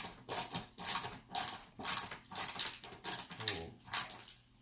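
Hand tool working wood in rhythmic back-and-forth strokes, about three a second.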